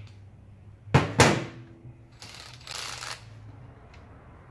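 Two sharp clacks about a fifth of a second apart, the second leaving a brief ringing tone, then about a second of rattling, from hand tools and hardware being handled, over a steady low hum.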